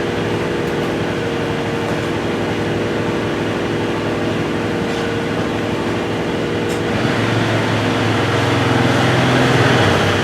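An engine running steadily, with a deeper, louder hum coming in about seven seconds in.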